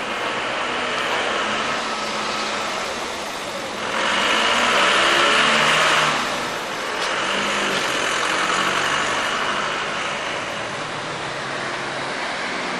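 Town street traffic: vehicle engines running and tyres on the road. A minibus passes close by about four to six seconds in, the loudest part.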